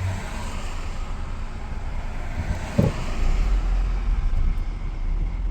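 Honda Civic engine idling roughly, heard from inside the cabin. The engine has a rod knock, the car is shaking and the idle is sagging. The low rumble grows louder about three seconds in.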